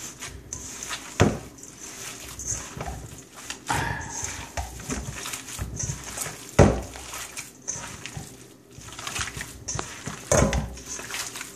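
Hands kneading raw meatball mixture of ground beef, eggs and breadcrumbs in a bowl: irregular wet squishing with scattered knocks, and a few louder thumps.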